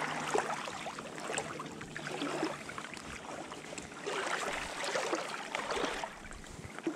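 A steady wash of moving water, a little louder for a couple of seconds from about four seconds in.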